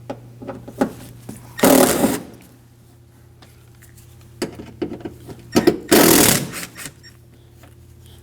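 Power driver spinning out two T25 Torx screws: two short whirring bursts about four seconds apart, with small clicks of handling between them.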